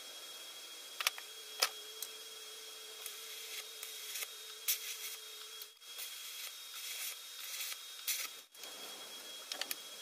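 TIG welder tack-welding a bolt onto a steel rod: sharp clicks as the arc is struck about a second in, a faint steady hum, then patches of hiss and crackle from the arc. The sound drops out briefly twice in the second half.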